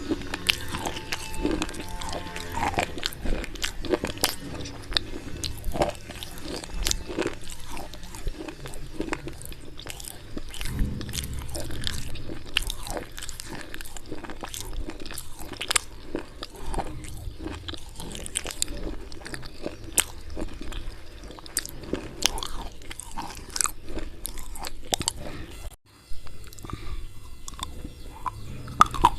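Slate pencils coated in white khadi chalk paste being bitten and chewed close to the mic: a rapid, irregular run of sharp, dry crunches.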